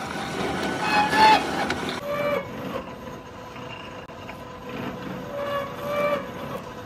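Workshop ambience with a machine running and a faint steady whine, broken by short pitched toots several times, like distant vehicle horns.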